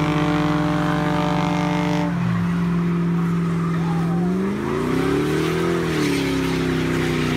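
A car's engine revving hard during a burnout, its rear tires spinning and squealing on the pavement. The engine note holds steady, drops about two seconds in, then rises and falls again around five to six seconds in.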